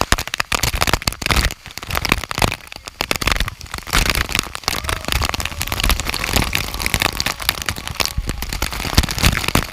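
Rushing waterfall water, a loud even hiss broken by many sharp crackles and uneven low buffeting on the microphone.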